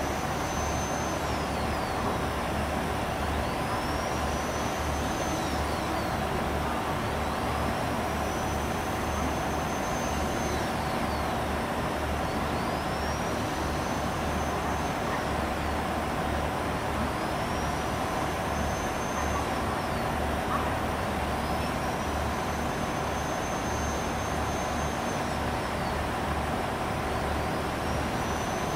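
JR Central 211 series electric train approaching slowly, heard as a steady low rumble with a constant hum and no build in loudness. A faint high tone that rises, holds and then falls repeats about every four and a half seconds.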